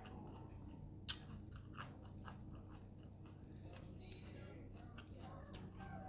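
Faint crackles and crunches of crisp lettuce leaves and crispy banh chao (Khmer rice-flour crepe) being folded into a wrap by hand, with a few sharp crackles, the loudest about a second in.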